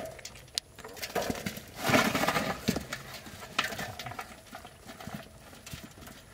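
Wet squelching and slapping of hands working through soft mud and grabbing wriggling fish, with scattered sharp clicks and a louder stretch of wet slapping about two seconds in.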